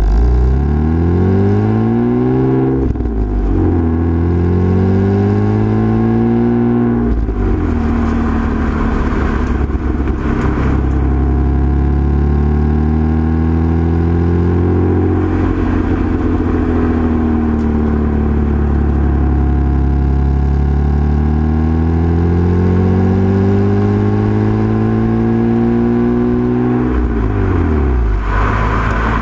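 Mitsubishi Eclipse exhaust while driving. The revs climb and fall sharply twice in the first seven seconds, as on upshifts. It then cruises with slow rises and falls in pitch, with another sharp drop near the end.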